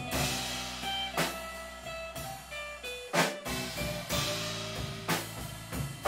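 Live rock band playing an instrumental passage: drum kit hits and cymbals over sustained guitar notes and bass.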